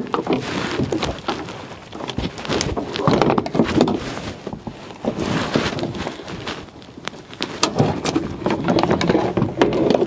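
Plastic sliding-door panel of a minivan being handled and worked into place against the door frame: rustling and scraping plastic with a run of irregular clicks and knocks.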